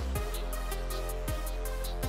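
Intro music with an electronic beat: quick hi-hat ticks, deep kick drums that drop in pitch, and a held bass line.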